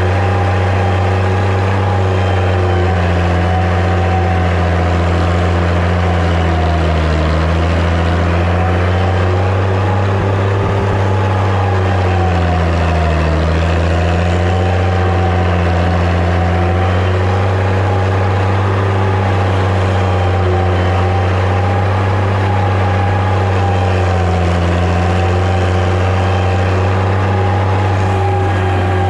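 Massey Ferguson 95X tractor's six-cylinder diesel engine running steadily under load while pulling a five-shank subsoiler. Its pitch sags briefly about seven seconds in and again about thirteen seconds in, then picks back up.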